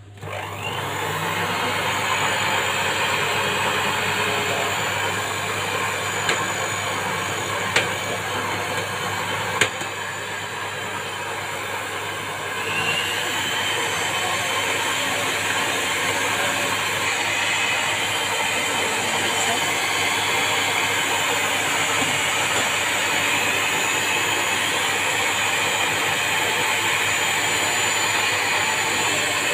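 Electric stand mixer switching on and running steadily, its twin beaters whipping creamed butter and sugar with an egg yolk. A couple of sharp clicks come about a third of the way in, and the mixer runs a little louder from a bit under halfway through.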